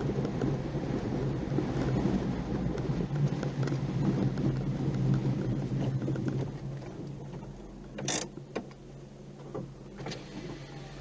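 Nissan March 12SR's 1.2-litre four-cylinder engine and road noise heard from inside the car while driving, dropping off about six and a half seconds in as the car eases off. A few sharp clicks follow, the loudest just after eight seconds.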